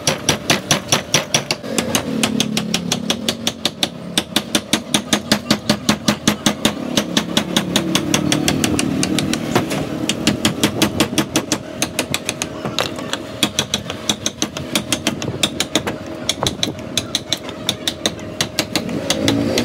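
Mallet blows on the handle of a steel carving chisel or gouge cutting into wood, a fast even tapping of about four to five blows a second, with a steady hum in the background.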